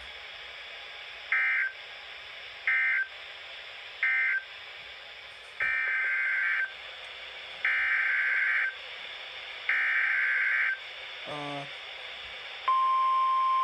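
Emergency Alert System SAME data bursts over a hissing weather radio broadcast. Three short screeching bursts mark the end-of-message code closing the previous warning, then three one-second bursts carry the header of a new tornado warning. Near the end the steady NOAA Weather Radio 1050 Hz warning alarm tone starts.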